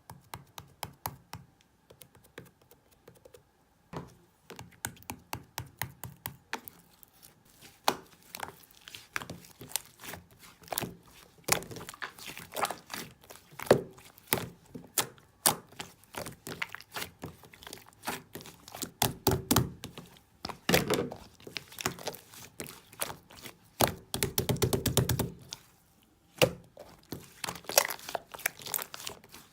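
Slime being handled: a rapid, irregular run of wet clicks and pops as it is pressed and stretched. There are two longer, fuller squelching presses, about two-thirds of the way through and again a few seconds later.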